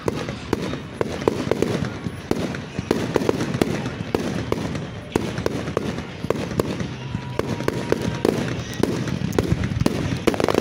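Fireworks display: aerial shells bursting in quick succession, a dense run of sharp bangs and pops, several a second, over a steady low rumble.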